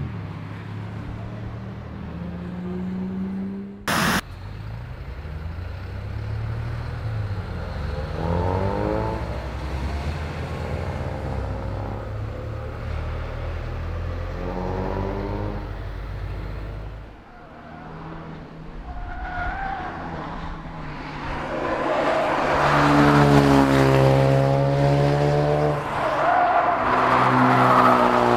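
Ford Focus RS test car's turbocharged four-cylinder engine pulling hard past on track, its pitch climbing through the revs again and again with drops at the gear changes, loudest over the last third. A single sharp crack about four seconds in.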